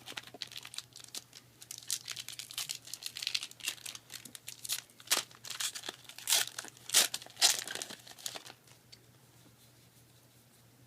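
Foil trading-card booster pack being torn open and crinkled, a crackly rustling that stops about eight and a half seconds in.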